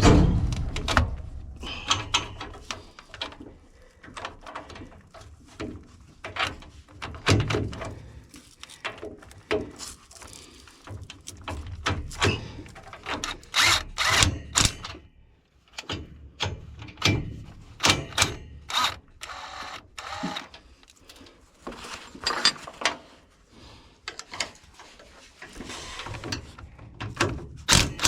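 Hands-on tool work: an irregular run of knocks, clicks and rattles from tools and parts being handled, with a few short stretches of low rumble.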